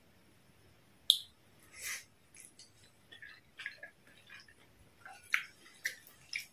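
Close-up eating sounds: wet chewing and small mouth noises from eating steamed siomai, with light clicks of chopsticks against a plate. The loudest is one sharp click about a second in.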